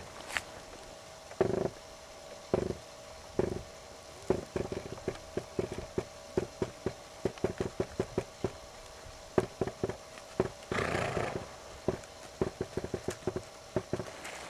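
A horse's hooves beating in a quick, even rhythm on the arena footing. There are a few heavier, breathy strokes in the first few seconds and a longer rushing burst about eleven seconds in.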